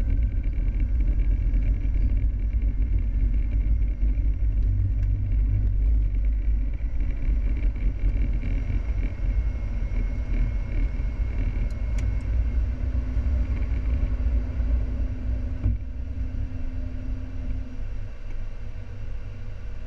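Cockpit noise of a Hawker 700 business jet on its takeoff roll and lift-off: a heavy, steady rumble from its Garrett TFE731 turbofans at takeoff thrust and from the runway, with a faint whine rising in pitch at the start. The low rumble eases somewhat in the last few seconds.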